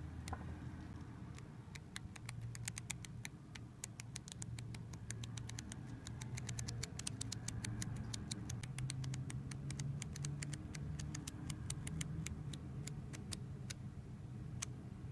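Paper pages of a small flipbook flicking off a thumb one after another: a fast run of light clicks that thickens into a rapid patter through the middle and thins out to a few last clicks near the end.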